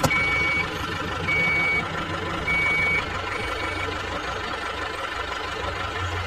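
A construction vehicle's reversing alarm beeps four times, about a second apart, the last beep fainter, over a steadily running engine. The beeping stops partway through while the engine keeps running.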